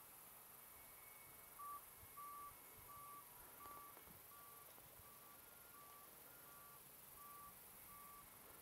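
Faint electronic beeping: short beeps at one steady pitch, evenly spaced a little under two a second, starting about a second and a half in and fading slightly, over a faint hiss.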